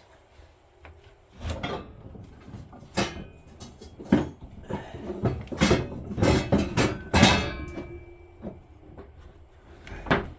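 Irregular metal clanks and knocks, some ringing briefly, from hand tools being handled and sorted while a punch is looked for to drive out a snowblower's shear bolt.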